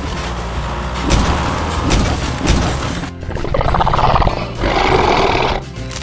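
Background music with a steady beat; about three and a half seconds in, a rough animal roar sound effect rises over it for about two seconds.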